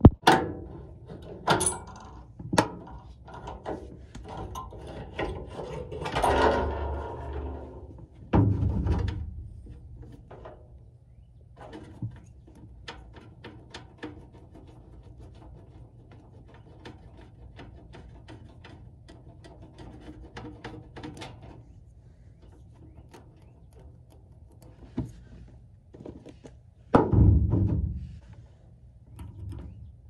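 Scattered knocks, clicks and rustling of hands and tools at work on an HVAC unit while its capacitor is checked. There are heavier thuds about eight seconds in and again near the end.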